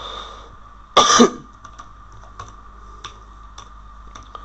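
A man clears his throat once, a short sharp burst about a second in, followed by a few light computer keyboard keystrokes.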